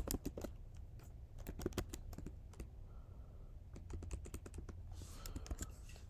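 Keystrokes on a computer keyboard: quick irregular runs of typing clicks as code is typed and then erased.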